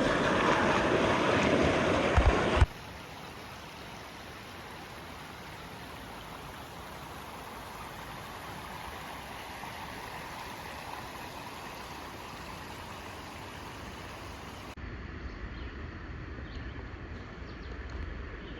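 Rushing water of a waterfall and stream: a loud, close rush for the first few seconds, then a sudden cut to a quieter, steady flow of water that changes character again after about fifteen seconds.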